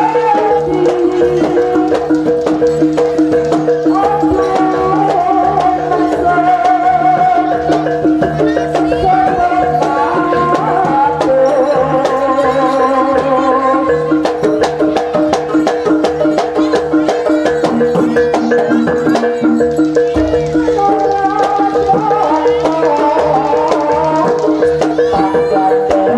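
Javanese jaranan gamelan music: steady held metallophone tones, rapid drum and percussion strikes, and a wavering melody line over the top.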